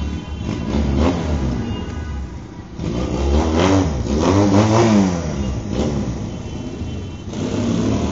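Motorcycle engines revving in repeated bursts, the pitch swooping up and down several times and loudest about three to five seconds in, over a steady low engine rumble.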